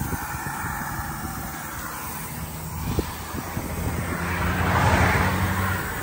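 Highway traffic going by close to the roadside shoulder, a steady rumble with one vehicle swelling past and fading about five seconds in.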